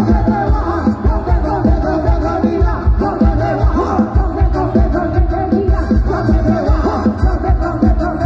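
Loud dance music with singing and a heavy, steady bass beat, played through the stacked loudspeakers of a small Thai parade sound truck (rot hae lek).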